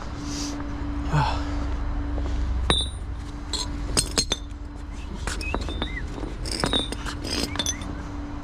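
Metal tow rigging clinking and clanking several times as it is handled and hooked up, over the steady hum of the flatbed tow truck's engine running.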